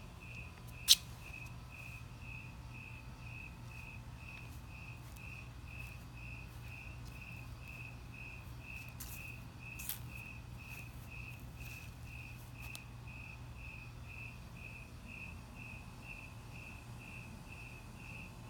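A cricket chirping steadily, about two and a half even chirps a second, over a faint low hum. A single sharp click about a second in is the loudest sound.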